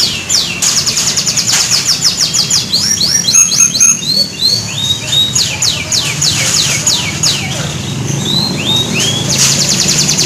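Canary singing: fast trills of short falling notes repeated many times a second, mixed with rising-and-falling whistled phrases.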